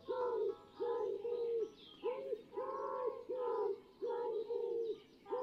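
A woman's wordless singing in short, repeated cooing, bird-like notes, part of a music track. The music cuts off abruptly at the end.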